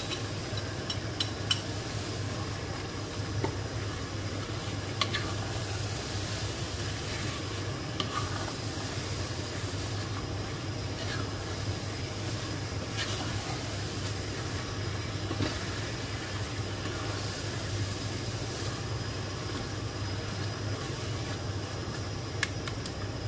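A wooden spoon stirring beef chunks and spice paste in an enamelled cast-iron pot over a gas flame, with a faint steady sizzle and a few sharp knocks of the spoon against the pot.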